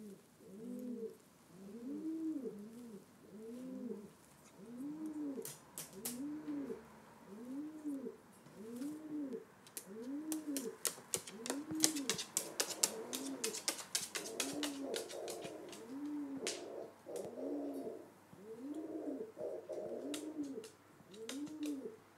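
Pigeon cooing over and over, about one low coo a second, each rising and falling in pitch. A flurry of sharp clicking taps comes about halfway through.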